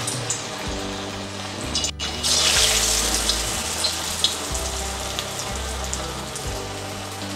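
Moong dal vadas sizzling and bubbling in hot oil in a kadai, just after being dropped in. There is a brief break near two seconds in, after which the sizzle gets louder.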